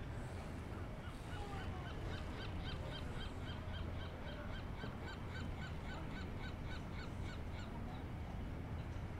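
California sea lion barking in a fast, even series of short calls, about four a second, starting about two seconds in and stopping near the end, over a steady low rumble.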